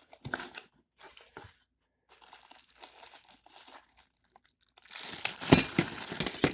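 Deadbolt lock packaging being handled and opened: crinkling and tearing with a few clicks, in short bits at first, then louder, denser rustling over the last second and a half.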